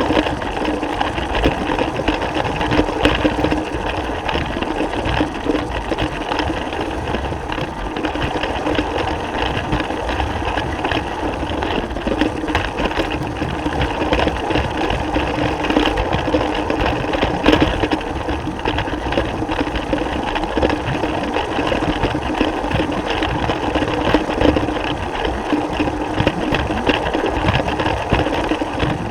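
Battery-powered Lego train running on plastic track: a steady electric motor whir with fast, dense clicking and rattling from the wheels and track joints.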